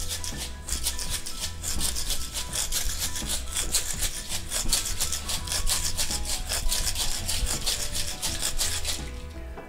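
Metal cocktail shaker being shaken hard with crushed ice and ice cream inside: a fast rhythmic rattle and scrape of ice against the tin, about four or five strokes a second, stopping about nine seconds in.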